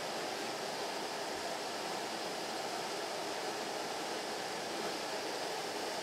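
A steady, even hiss with no distinct knocks or clinks.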